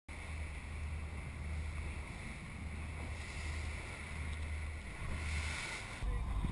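Sportfishing boat running at speed on the open sea: a steady low rumble from the boat with wind noise on the microphone and water rushing past the hull.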